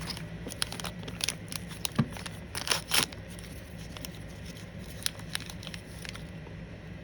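Small plastic blind-bag packaging crinkling and being torn open in a run of short rustles, loudest about three seconds in and dying away near the end.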